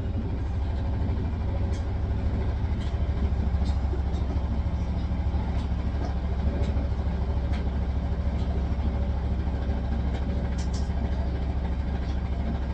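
Hisense washing machine on its spin cycle: a steady low hum from the motor and spinning drum, with a few faint ticks.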